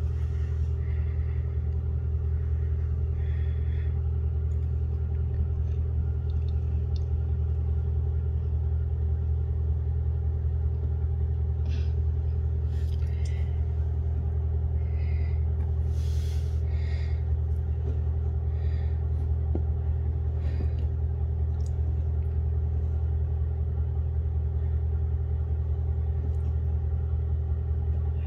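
Steady low machine hum, with a constant higher tone over it. A few faint short rustles and ticks come about halfway through.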